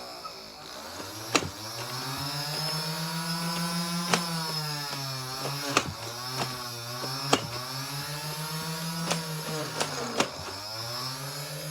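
Electric motor of a motorized Nerf blaster whirring, its pitch rising and falling in slow swells, with about seven sharp cracks spread through it as darts are fired.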